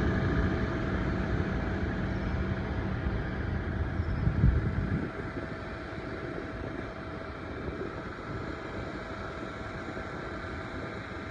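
Boeing 737-8 airliner's CFM LEAP-1B jet engines rumbling with a thin steady whine over it; a brief thump comes about four and a half seconds in, and then the low rumble drops away to a fainter steady drone.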